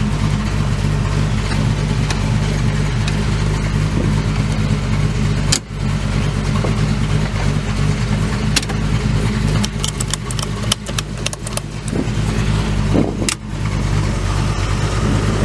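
1960 Studebaker Lark III engine idling steadily, heard from inside the cabin. A sharp click comes about five and a half seconds in, and a quick run of clicks follows from about eight to eleven seconds.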